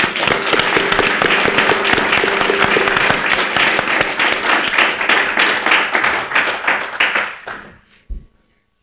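Audience applause, a dense patter of many people clapping that dies away about seven and a half seconds in.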